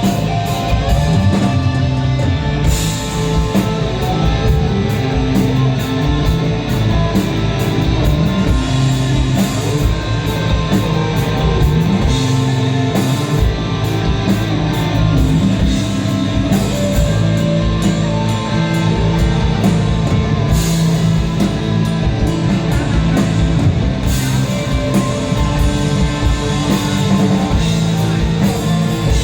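Desert rock band playing live: electric guitar, bass and drum kit, loud and steady, with regular cymbal strikes over held bass notes.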